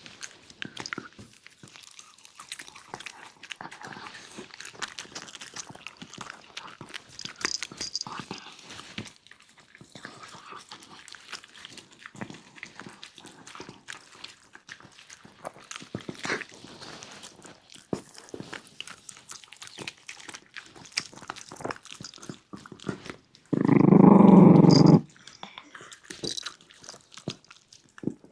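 Shiba Inu puppy eating, with a steady run of small crunches and clicks as it chews its food. About three-quarters of the way through comes one loud growl lasting about a second and a half.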